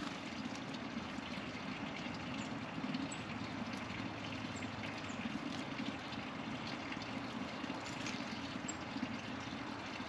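Steady running, trickling water, with faint high bird chirps breaking in now and then.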